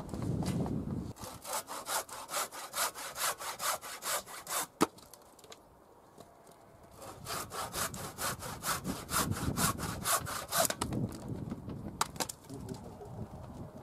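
Handsaw cutting a thin strip of wood, in quick back-and-forth strokes. The strokes come in two runs with a pause between them, and a single sharp knock is the loudest sound, about five seconds in.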